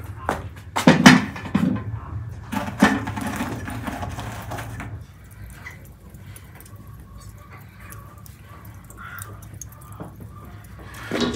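Knocks and clicks of things being handled, frequent and fairly loud in the first half, then fewer and fainter; a low steady hum underneath.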